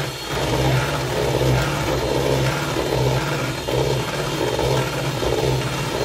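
Electric hand mixer running steadily, its beaters whipping chantilly cream in a plastic bowl; a low motor hum that swells and fades about once a second.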